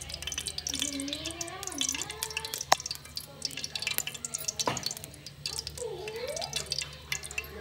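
Ghee melting and crackling in a metal pot on a gas stove, with two sharp clicks about three and five seconds in. A faint voice glides in the background.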